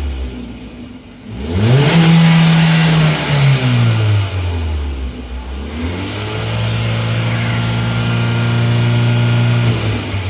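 Hyundai Verna's 1.6-litre four-cylinder petrol engine revved at a standstill, heard at the exhaust: it settles from a rev to idle, is blipped up sharply and held for a second or two, falls back, then is held at a steady lower rev for about four seconds before dropping back near the end.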